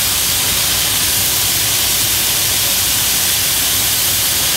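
Diced onion, tomato, jalapeño and garlic sizzling steadily in hot oil in a stainless steel skillet, just added to the pan.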